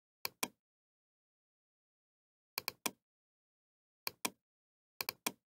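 Computer mouse clicking: ten short, sharp clicks in four quick groups of two or three.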